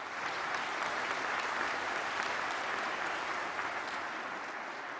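Audience applauding, with many hands clapping steadily before the applause slowly dies down toward the end.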